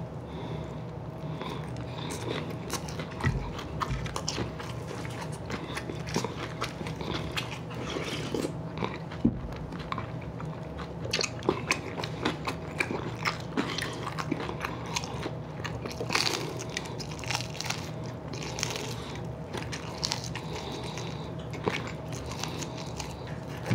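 A person chewing and biting into breaded fried chicken wings close to the microphone, with many small crunches and clicks throughout.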